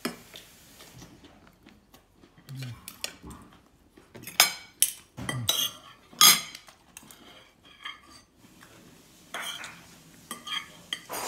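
Metal fork clinking and scraping against a stainless steel plate, in irregular sharp clinks that begin a few seconds in.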